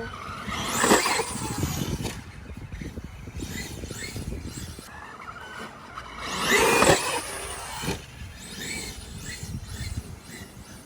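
Traxxas E-Revo electric RC monster truck driving at speed, its motor whine sweeping up and down as it accelerates. It is loudest about a second in and again around seven seconds in.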